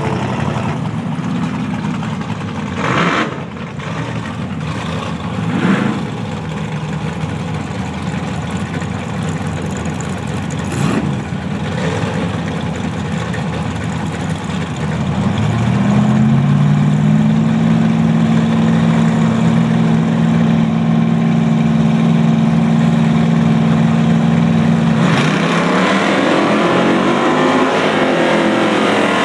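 Drag-racing Chevy S-10 pickup's engine idling at the starting line with a few short revs, then held at a steady high rev for about nine seconds. About 25 seconds in it launches and accelerates hard down the strip, the pitch rising and dropping through gear changes, alongside the car in the other lane.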